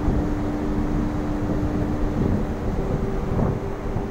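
Steady drone of a cruise ship's machinery, a constant hum over low rumble, with wind buffeting the microphone on the open deck.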